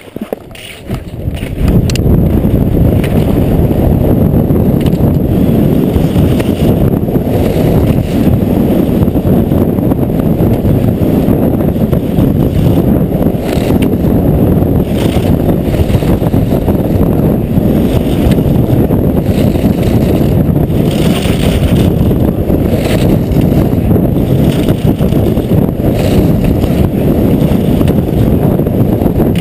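Wind buffeting a helmet camera's microphone during a fast downhill ski run. It builds over the first two seconds as the skier picks up speed, then stays loud and steady.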